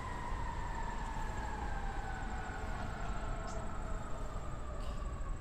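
A siren holding one long tone that slowly falls in pitch, over a low rumble of city traffic.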